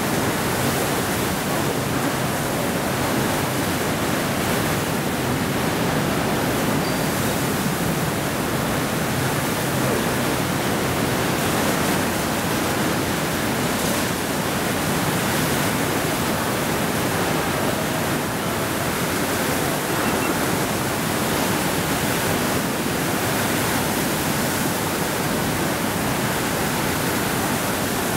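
Torrential rain and strong wind of a severe tropical cyclone, a loud, steady noise with no let-up.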